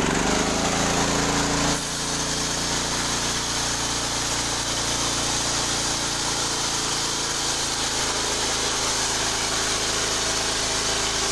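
Engine-driven sawmill running steadily as its blade cuts through a log. About two seconds in, the sound shifts and a steady high hiss joins the engine.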